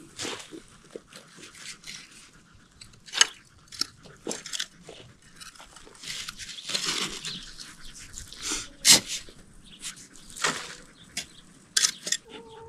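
Digging in loose garden soil with a garden fork and a puppy digging alongside: irregular scraping and crunching of earth with scattered sharp knocks, the sharpest about nine seconds in.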